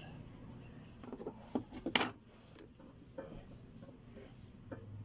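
A few light clicks and knocks of bicycle parts and tools being handled, the sharpest about two seconds in.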